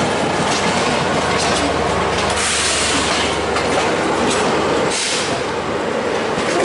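Passenger coach running at speed, heard from aboard: a steady roar of wheels on rail, with scattered clacks over rail joints and two brief rushes of louder hiss, about two and a half and five seconds in.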